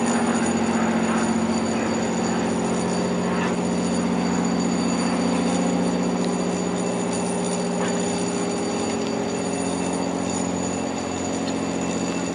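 A fishing vessel's diesel engine idling, a steady low drone with several even tones.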